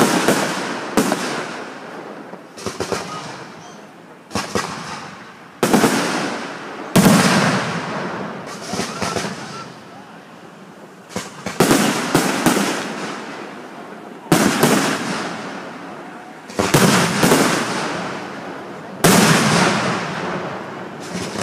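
Aerial firework shells bursting one after another, a sharp boom every one to two seconds, each fading with a long echoing tail, some followed by quick clusters of smaller pops.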